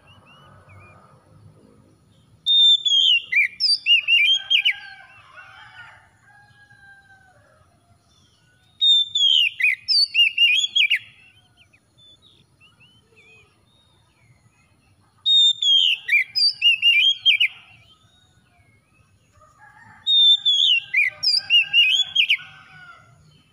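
Oriental magpie-robin singing: four loud phrases of rapid, sharp whistled notes about six seconds apart, each followed by fainter, lower warbling notes.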